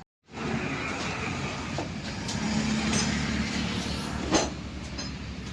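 A motor vehicle's engine running with a steady low hum and road-type noise, starting abruptly after a short gap at the beginning. A sharp click about four seconds in.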